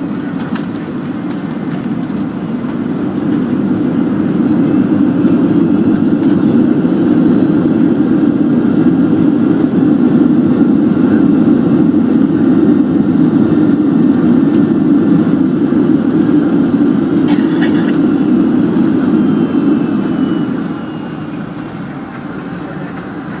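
Cabin noise of a Boeing 757 on its landing rollout: a steady rushing noise from the engines and airflow builds over the first few seconds and holds, then drops sharply about twenty seconds in as the jet slows.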